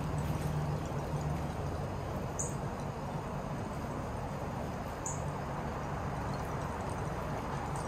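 Outdoor garden background noise with a steady low hum, and two short high bird chirps, about two and a half and five seconds in.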